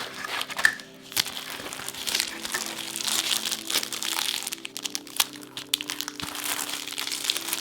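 Packaging crinkling and rustling in irregular bursts as it is handled, over soft background music.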